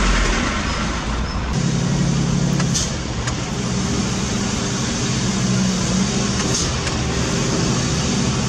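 Heavy diesel engine running steadily, its note changing about a second and a half in, with a couple of short high hisses.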